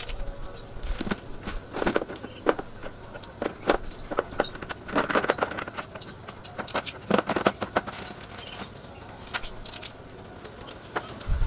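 Irregular clicks, knocks and light clatter of hard objects being handled.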